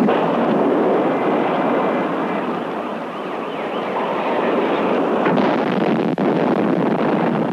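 Steady rushing roar of a large tank-car fire with a heavy hose stream playing on it, dipping a little about three seconds in.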